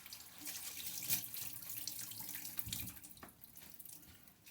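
Kitchen tap running into a sink while vegetable florets are rinsed under it, with water splashing. The flow is strongest over the first three seconds, then eases off.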